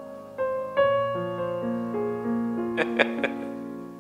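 Keyboard playing soft, sustained chords that change every half second or so over a slowly descending bass line. A brief, short noisy sound cuts in near three seconds in.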